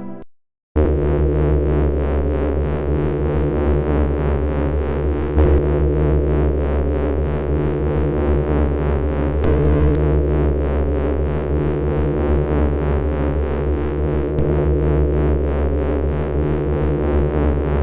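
Electronic synthesizer music: a dense, sustained drone of steady layered tones with a fast, even pulsing, starting under a second in after a brief silence.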